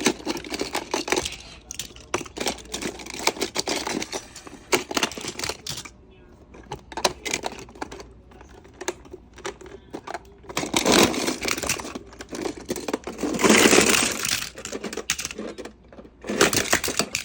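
Small toy cars clattering and clicking against one another as they are taken out and sorted by hand, with louder rattling about eleven and again about thirteen seconds in.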